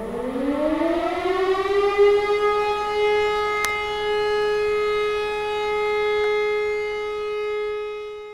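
A siren winding up from a low pitch to a steady held tone over about two seconds, holding it, then cutting off suddenly at the end. There is a single brief click about three and a half seconds in.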